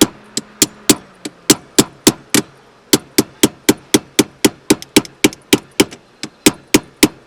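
Rapid, evenly spaced sharp taps, about three to four a second with a short break about two and a half seconds in: a slip-over rubber or plastic shift-knob adapter being tapped down onto a manual Nissan shift lever.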